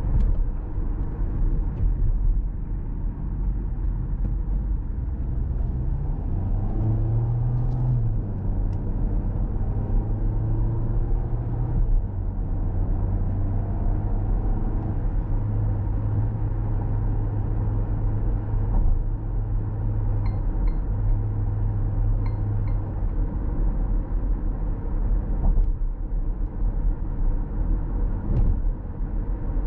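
Cabin sound of a 2024 Volkswagen Tiguan 1.5 eTSI mild-hybrid cruising at about 75 km/h: steady tyre and road rumble with the engine running underneath, and a low drone that comes in for a stretch through the middle. A few faint short beeps are heard about two-thirds of the way through.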